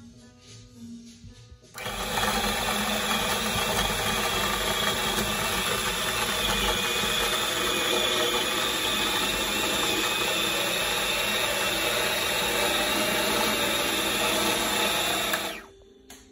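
Food processor motor switched on about two seconds in, running steadily at a constant speed, then cut off abruptly near the end.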